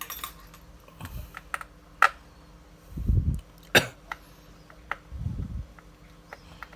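Small sharp clicks and taps, with a few short low rubbing knocks, from handling a Canon EOS 60D camera body and small tools during disassembly. The two loudest clicks come about two seconds and a little under four seconds in.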